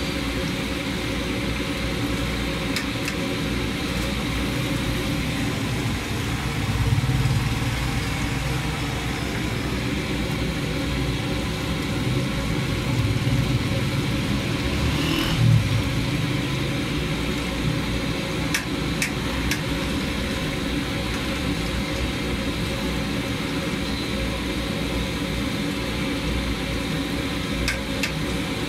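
Chicken pieces deep-frying in a large karahi of oil, sizzling steadily over a steady engine-like hum. A few light clicks come near the middle and near the end.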